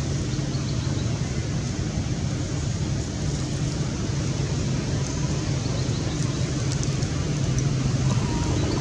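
Steady low outdoor rumble with a light hiss, unchanging throughout, and a few faint ticks near the end.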